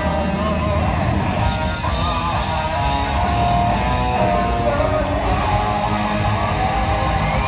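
Punk rock band playing live: distorted electric guitars with bass and drums, loud and steady.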